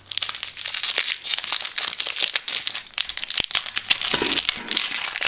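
Foil wrapper of a Yu-Gi-Oh booster pack crinkling as it is handled and opened.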